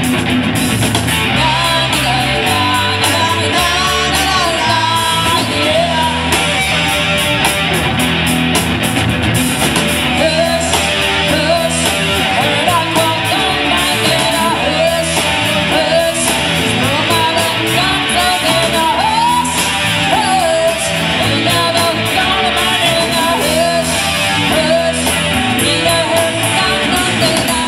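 Rock cover band playing a song: electric guitars, bass and drums with a singer, loud and steady.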